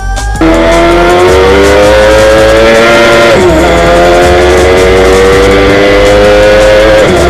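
Scorpion P6 reverse-trike prototype's motorcycle engine, heard on board at full throttle: the pitch climbs steadily through a gear, drops sharply at an upshift about three seconds in, then climbs again to another upshift near the end.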